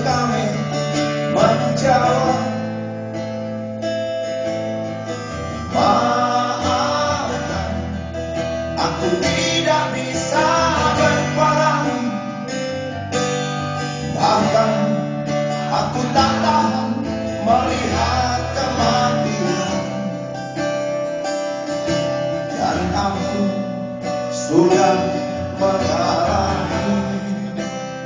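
Live band music led by acoustic guitar, with a melody line in phrases a few seconds long over sustained chords.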